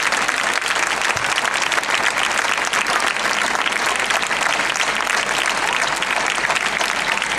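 A crowd applauding: dense, steady clapping of many hands.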